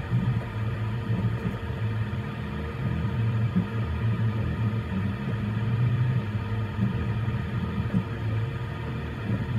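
Voron 3D printer printing: the stepper motors hum low, the pitch shifting in quick steps as the print head darts through short moves, over a steady higher tone.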